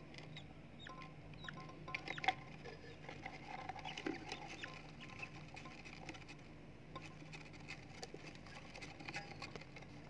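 Faint squeaky peeping from budgerigar chicks in the nest box, mixed with many small scratches and clicks as the hen's feet shift through the wood shavings.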